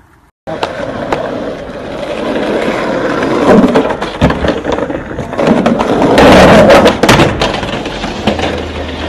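Skateboard sounds on concrete and stone: wheels rolling, boards clacking and slapping down, and sharp knocks as boards and riders hit the ground, loudest about six seconds in.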